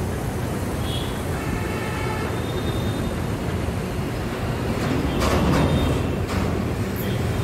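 ALCO WDM3A diesel-electric locomotive's 16-cylinder 251 engine running, a steady low rumble as the light engine moves slowly away. A few sharp clatters come about five to six seconds in.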